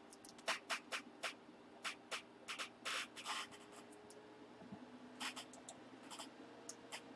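Pen writing on paper: a quick run of short strokes over the first three and a half seconds, then a few more near the end, over a faint steady hum.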